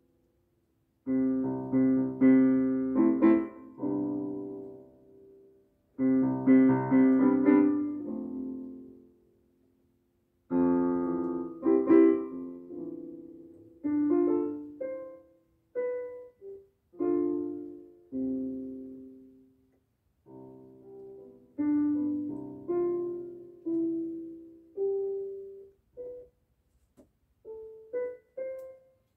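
An electronic keyboard playing with a piano sound: phrases of chords separated by short pauses, thinning into sparser single notes in the second half.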